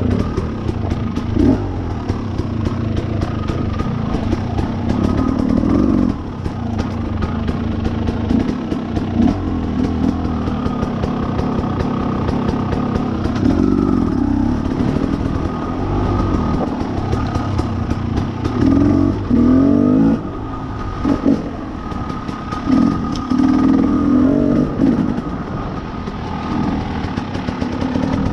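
Two-stroke dirt bike engine riding a rough trail, the throttle opened in short repeated bursts of revving, with clatter and rattle from the bike over the ground.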